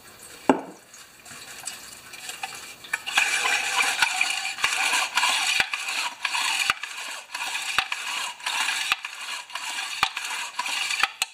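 Mower recoil starter being swished and scrubbed by hand in a shallow metal pan of liquid: splashing and sloshing that gets louder about three seconds in, with the plastic part knocking against the metal pan about once a second. There is one sharp knock about half a second in.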